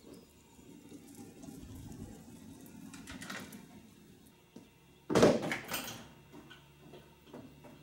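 Faint handling noise, then one loud clunk about five seconds in, dying away within a second, while an engine on a shop hoist is being worked into a truck's engine bay.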